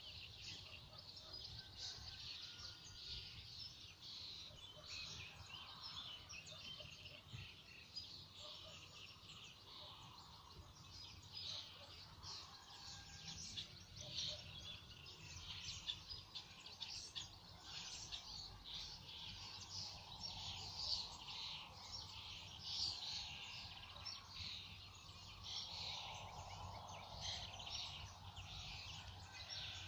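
A chorus of small songbirds chirping and singing continuously, many quick overlapping calls, over a faint steady low rumble.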